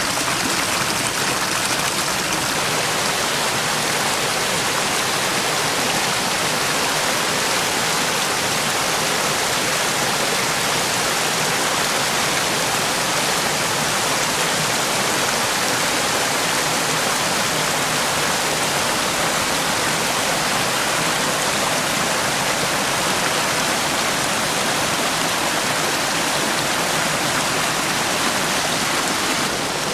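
Small stream rapids rushing and splashing over rocks: a steady, even rush of water that does not change.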